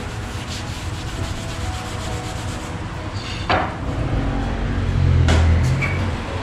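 A rag rubbed and wiped along the edge of a quartz countertop, with a short squeak dropping in pitch about three and a half seconds in and a knock a little before the end.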